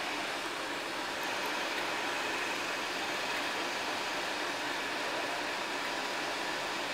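A train hauled by Class 31 diesel-electric locomotive 31206 running slowly, heard from an open carriage window: a steady, even running noise with no sudden knocks.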